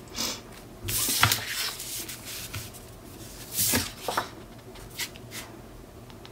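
Sheets of scrapbook paper and cardstock rustling and sliding as they are picked up and laid down on a cutting mat, with a sharp tap about a second in and another rustle near four seconds.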